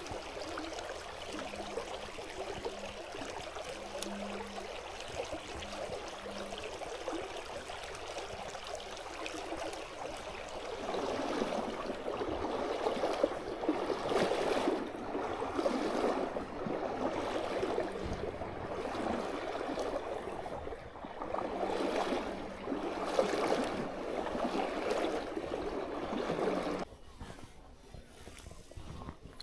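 Shallow stream running over stones, a steady rush of water that grows louder about a third of the way in and drops away suddenly near the end.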